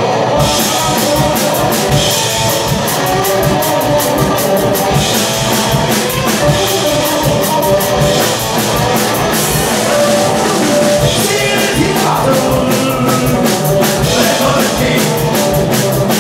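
Live psychobilly band playing: electric guitar and upright bass over a fast, driving drum kit beat.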